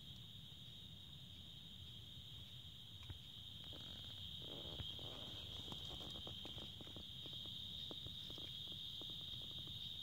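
Night insects chorusing in a steady, unbroken high trill. From about a third of the way in there are scattered faint rustles and clicks.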